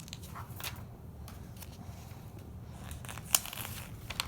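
Faint rustling as LEGO pieces are handled, with a few sharp clicks, the loudest about three seconds in and another near the end.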